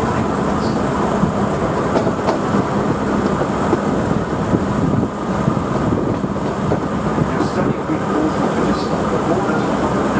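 Queensland Rail 2000 class diesel rail motor running steadily on the climb, with a constant engine drone and wheel-on-rail rumble. A few faint, brief high squeaks come through.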